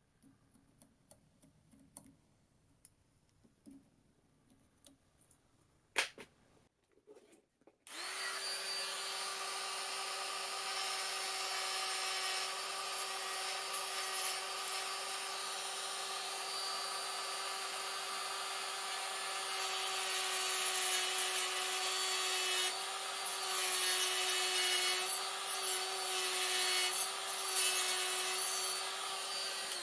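A small electric power tool, most likely shaping the cast moulding piece, starts abruptly about eight seconds in and runs with a steady motor whine over a rasping noise. Its pitch wavers slightly and it gets a little louder in the second half, then it stops at the very end. Before it starts there are only a few light clicks of handling.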